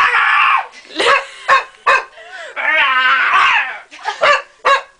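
Two dogs barking back and forth: short sharp barks around two longer drawn-out, whining yowls, one at the start and one in the middle.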